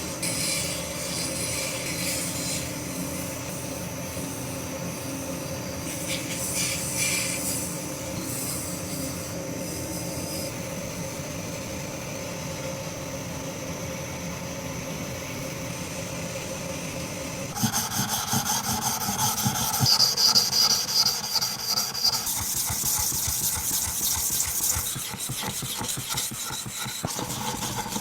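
A rusted carpentry plane blade being sharpened: steady rubbing strokes of metal on an abrasive. About two-thirds of the way in, the strokes turn louder and faster.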